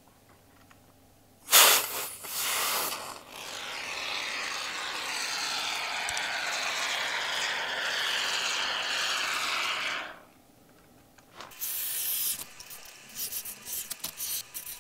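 Can of Great Stuff expanding spray foam hissing as foam is dispensed into the gap around the door jamb. There is a short spurt about a second and a half in, then a steady hiss for about seven seconds that cuts off sharply, followed by light handling noises.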